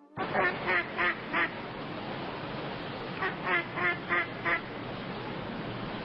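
Duck quacking in two quick runs, four quacks and then five, about three a second, over a steady background hiss.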